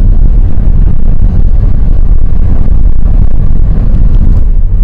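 Car driving on a paved mountain road, heard from inside the cabin: a loud, steady low rumble of engine and road noise.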